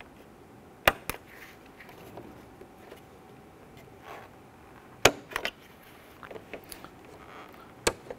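Sharp plastic clicks as the push-in clips of a foam hood seal are pinched with needle-nose pliers and popped out through the holes of a plastic Toyota Camry grille: two about a second in, a louder cluster around five seconds, and another near the end, with faint ticks and rustling of the seal between.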